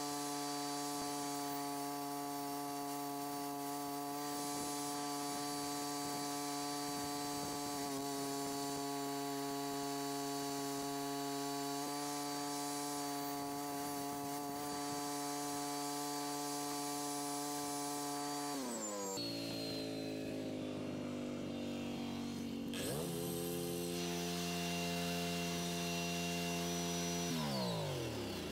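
Engine of a Miller Bobcat 250 NT engine-drive welder/generator running steadily at speed while carrying welding and grinder load. About 19 seconds in it slows to a lower steady speed, speeds back up about 4 seconds later, and slows again near the end.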